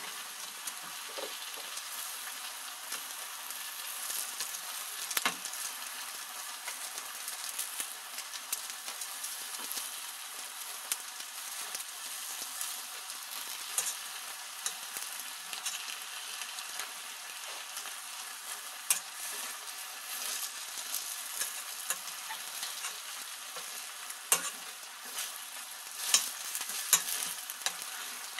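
Chicken breast, bean sprouts and vegetables sizzling in a stainless steel frying pan as they are stir-fried. A wooden spatula turns them, with occasional sharp scrapes and knocks against the pan.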